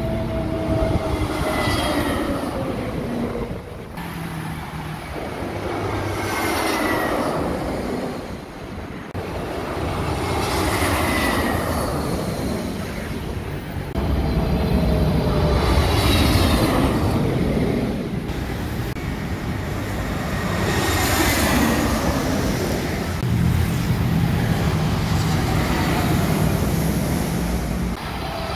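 Busy road traffic: motorbikes and cars passing close by in a steady stream, with a falling engine whine each time one goes past, several times over, over a low engine drone.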